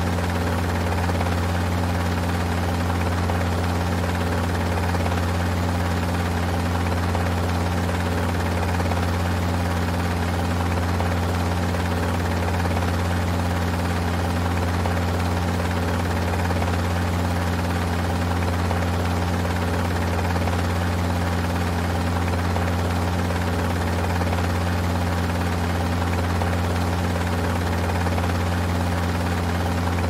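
Helicopter running steadily: a constant deep drone with steady hum tones above it and a rushing noise, unchanging in level throughout.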